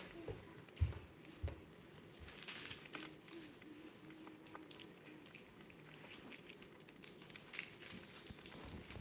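Faint scratching and light clicking of sawagani (Japanese freshwater crabs) moving over pebbles and the plastic wall of their container, with two low thumps about a second in.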